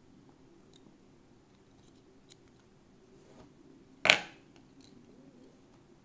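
Metal parts of an old Zeiss Ikon lock cylinder being handled during disassembly: a few faint small ticks, and one sharp metallic click about four seconds in as the cam comes off.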